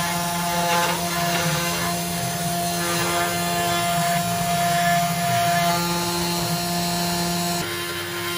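Genmitsu 3020 Pro Max V1 desktop CNC router milling a pocket in aluminum with a 1/4-inch two-flute end mill: a steady spindle whine over the hiss and chatter of the cut. The sound shifts abruptly near the end.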